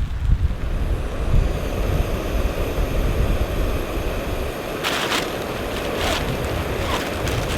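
Strong blizzard wind blowing, with a low rumbling buffeting on the microphone; in the second half a few short hissing gusts rise over it.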